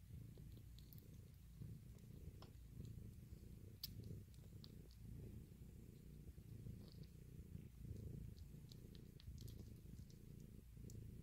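A cat purring softly: a low, steady rumble that swells and eases with its breathing, with a few faint small clicks over it.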